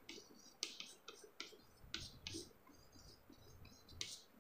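Chalk writing on a blackboard: faint, short, irregular scratches and taps of the chalk stick against the board.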